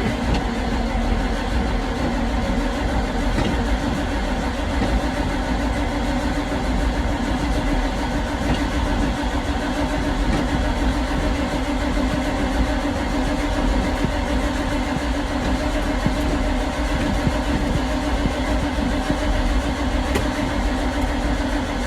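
An old truck's engine cranking steadily on its starter motor for about twenty seconds without catching. Its choke doesn't work and it has only contact cleaner in the carburettor in place of ether.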